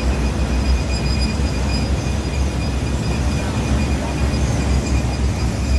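Hitech-SH10T industrial shredder for textile scraps running under load: a loud, steady heavy rumble with a thin, steady high whine on top.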